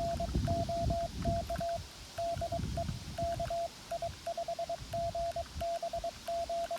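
Xiegu G90 transceiver's CW sidetone: a single steady-pitched Morse code tone keyed in quick dots and dashes, sending a CQ call, over a low rumble.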